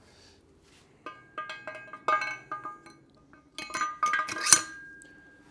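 Steel parts clinking and knocking against each other as a Toyota upper control arm is handled and taken out of a hydraulic shop press. There are two clusters of sharp knocks, each followed by a short metallic ring, and the loudest knock comes near the end with its ring fading away after it.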